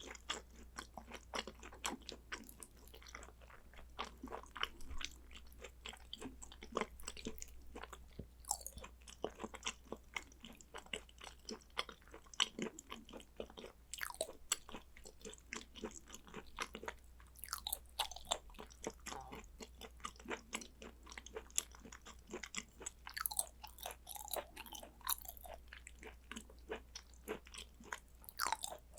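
Close-miked chewing of raw beef yukhoe and sea urchin roe: steady wet chewing with many quick, irregular mouth clicks and smacks.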